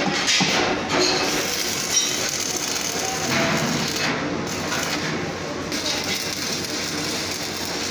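Electric arc welding on a steel wheelbarrow frame: a steady sizzling hiss, with a few metal clinks in the first couple of seconds as the frame is handled.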